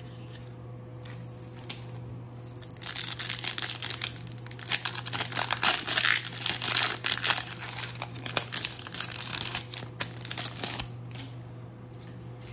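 Foil wrapper of a Topps Opening Day baseball card pack being torn open and crinkled by hand. It gives a dense run of crackling that starts about three seconds in, is loudest in the middle and dies away near the end.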